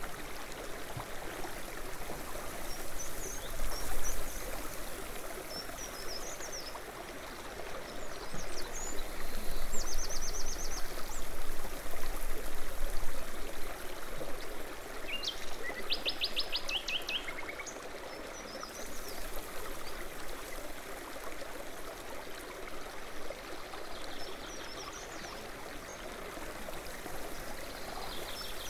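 Steady rush of running water with birds chirping over it, including a short rapid trill about ten seconds in and another about sixteen seconds in.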